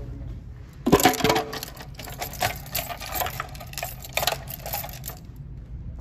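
Metal door hardware being worked: a sharp clunk about a second in, then a run of irregular clicks and rattles that stops a little after five seconds, consistent with a push-bar (panic bar) door latch and the door being handled.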